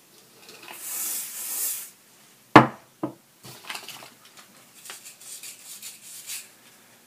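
An aerosol hairspray can (Sebastian Shaper) sprays in one hiss of about a second and a half, followed by a single sharp knock. Then a boar-bristle round brush rasps through a raised section of hair again and again as it is back-combed to tease it.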